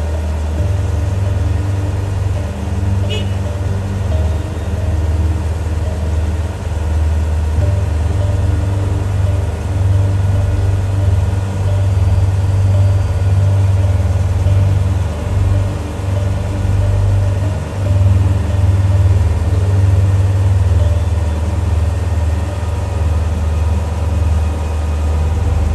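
Heavy diesel engine of a railway recovery crane running steadily under load as it lifts a derailed locomotive, a deep drone that steps up and down in strength a few times.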